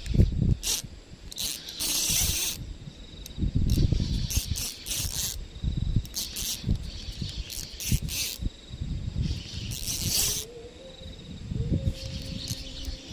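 Spinning reel cranked in short spells as a lure is retrieved, a ratcheting whir that comes and goes, with low bumps of handling noise between.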